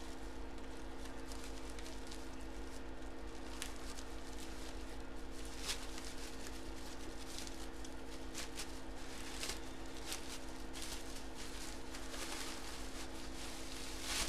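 Packaging and plastic sleeves rustling and crinkling in short, irregular bursts as items are handled, over a steady electrical hum.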